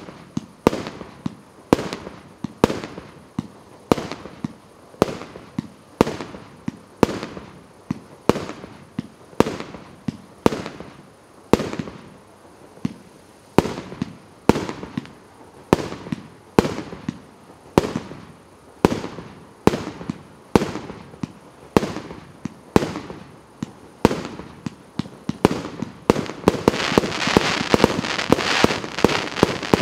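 A 164-shot compact fireworks cake firing shot after shot at a steady pace of about one and a half a second, each a sharp bang with a short echo. Near the end the separate shots give way to a dense, continuous crackle.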